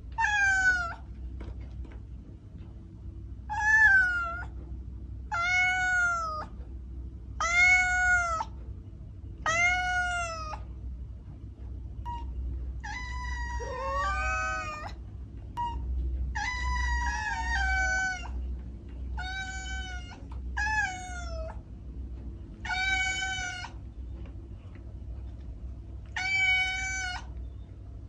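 Domestic cat meowing over and over, about a dozen clear meows roughly every two seconds, a few in the middle with a wavering pitch. A steady low hum runs underneath.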